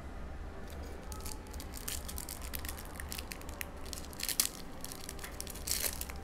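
Shiny foil wrapper of a 2023 Select UFC Hobby trading-card pack crinkling and tearing as it is opened and the cards are pulled out. There are sharp crackles throughout, loudest about four seconds in and again near the end, over a steady low hum.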